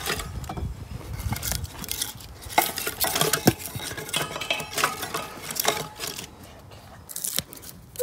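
Split wooden kindling sticks being dropped and pushed into a rocket stove's metal feed box, knocking and clinking against the metal at irregular intervals, some knocks with a brief metallic ring.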